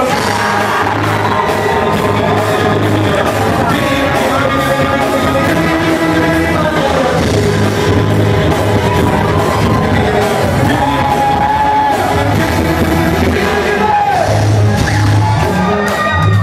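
Live band playing loud pop music with a singer's voice over a steady bass beat, heard in a large room.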